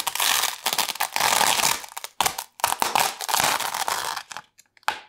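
Paint-covered adhesive masking being peeled off a canvas in several long pulls, a ripping, crackling noise, with a few short crackles near the end.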